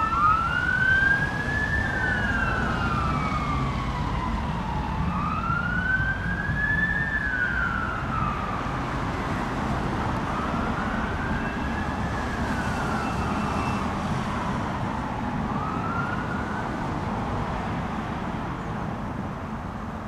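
Fire engine siren on a slow wail, its pitch rising and falling in long sweeps about every five seconds and fading away near the end, over steady low road and engine noise.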